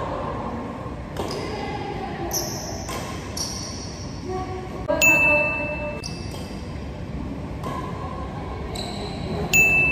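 Badminton rackets hitting a shuttlecock, sharp strikes every second or so, the two loudest followed by a brief ringing ping.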